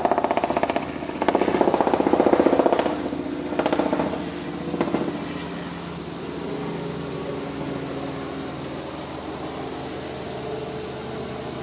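Safari vehicle's engine running with a fast, even clatter, louder through the first few seconds, then settling to a steadier, quieter idle.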